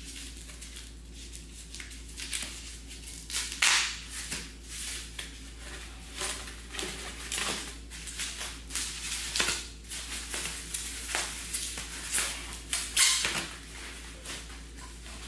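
Packing material being handled while exhaust parts are unpacked: irregular rustling and crinkling with scattered knocks, loudest about 3.5 seconds in and again near the end, over a steady low hum.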